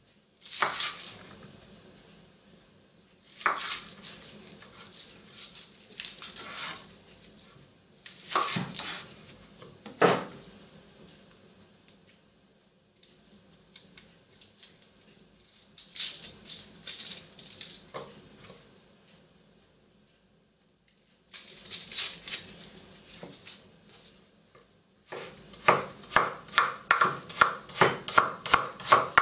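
Kitchen knife on a wooden cutting board, cutting and peeling garlic cloves: scattered sharp cuts and crackles with pauses between. Near the end comes rapid, even chopping at about four to five strokes a second.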